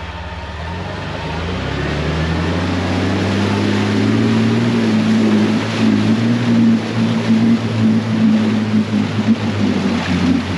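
Jeep Wrangler TJ engine revving up over the first few seconds, then held at steady revs under load while it pushes through a deep water crossing. Water rushes and splashes around it, growing louder.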